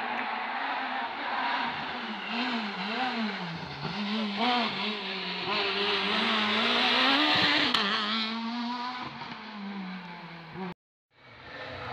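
Rally car engine working through a tight hairpin: the revs rise and fall several times in quick pulses as the driver works the throttle, then climb as the car accelerates out about seven seconds in. The sound cuts off abruptly near the end.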